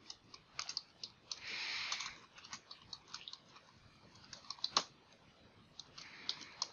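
Typing on a computer keyboard: irregular, quick keystroke clicks, one noticeably louder about three-quarters of the way through, with a short soft hiss twice between the keystrokes.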